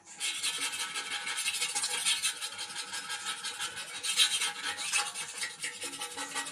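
Quick, irregular rasping strokes of metal being abraded by hand, as in sanding or filing down the steel fuel tank.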